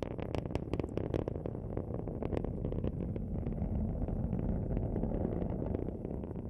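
Falcon 9 rocket in powered ascent: a steady low rumble with crackling, the crackle busiest in the first couple of seconds. The first-stage engines are throttled back as the rocket nears maximum aerodynamic pressure.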